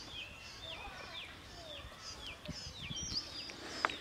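Birds chirping over and over, a run of short down-slurred notes at about two a second, with a single sharp click near the end.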